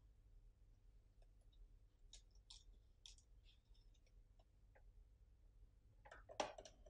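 Near silence with faint, scattered clicks and taps of small flex-cable adapters and phone parts being handled on a tabletop, a slightly louder click near the end.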